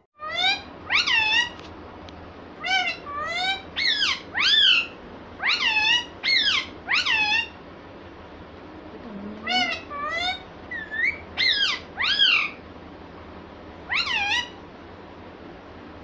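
Indian ringneck parakeet calling in a string of short, high calls that rise and fall in pitch, mostly in pairs, with a pause of about two seconds near the middle.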